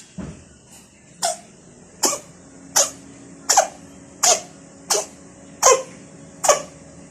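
Cat coughing in a rhythmic series of short, sharp hacks, about one every three-quarters of a second, each dropping quickly in pitch.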